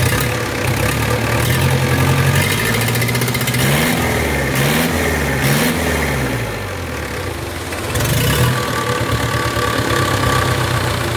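Westerbeke 40 four-cylinder marine diesel engine running on a test stand. It is revved up and down several times in quick succession a few seconds in, then drops back and settles to a steady idle.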